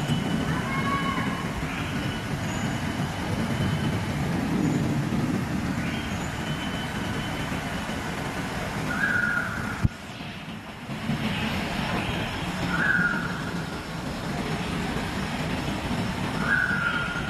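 Steady low rumble of a large indoor glass atrium's ambience, with short chirps repeating about every four seconds. A single sharp click about ten seconds in.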